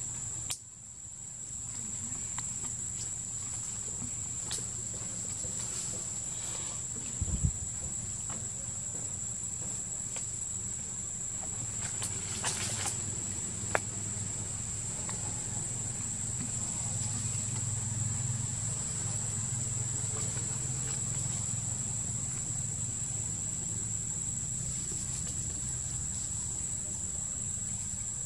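Insects droning steadily on one high pitch over a low rumble, with a few brief knocks and clicks, the sharpest about seven seconds in and again near fourteen seconds.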